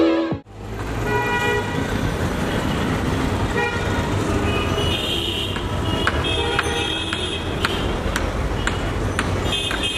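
Intro music cuts off in the first half second, then steady road-traffic noise by a city railway line, with repeated short toots of vehicle horns.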